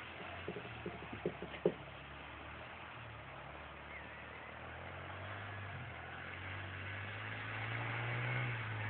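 A small vehicle engine running steadily and drawing nearer, growing louder through the second half. A few sharp knocks come in the first two seconds.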